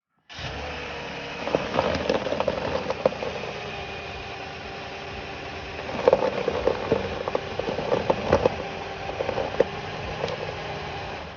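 A 2012 Toyota Venza's engine idling while the steering wheel is turned so the front wheel points inward. Sharp clicks and rattles come and go over it, most of them around two seconds in and again from about six seconds in.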